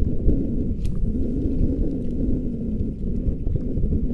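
Fishing boat's engine running under way: a loud, steady low rumble with a faint wavering drone in it.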